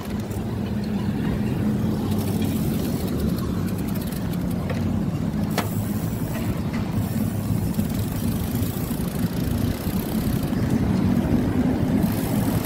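Steady low rumble of a bicycle rolling over grooved concrete pavement, with one sharp click about halfway through.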